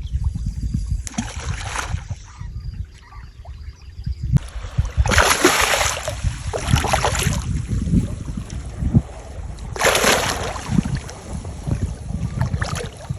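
Water sounds and wind on the microphone, with a steady low rumble and two louder rushing, splashing bursts about five and ten seconds in.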